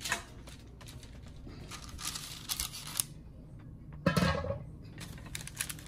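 Handling noises as a whole raw salmon is pulled out and laid on a tray: scattered rustling, clicks and light knocks. A short vocal sound comes about four seconds in.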